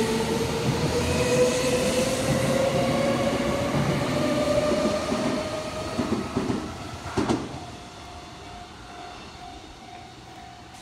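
Electric commuter train accelerating away from the platform, its traction motors giving a whine that rises steadily in pitch over the rumble and clatter of its wheels. About seven seconds in there is a sharp clack, then the train fades away, leaving a faint repeating tone.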